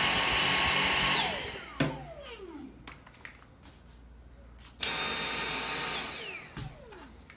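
Dyson cordless stick vacuums, a V7 Motorhead and an older DC59 Motorhead, each run briefly in turn. A steady high whine cuts out after about a second and falls away as the motor spins down. About five seconds in, a second whine runs for about a second and winds down the same way.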